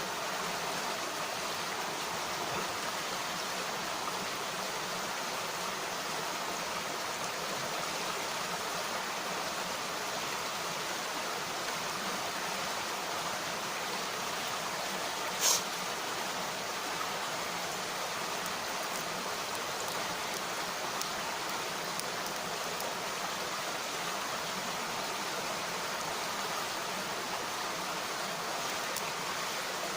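Mountain stream (sawa) flowing with a steady rushing, with a single sharp snap about halfway through.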